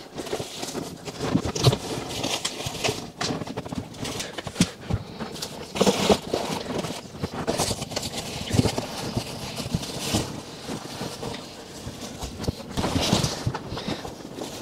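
Cardboard box flaps rustling and plastic-wrapped chair parts crinkling as they are pulled out of the box, with irregular knocks and thumps as parts hit the box and the wooden floor.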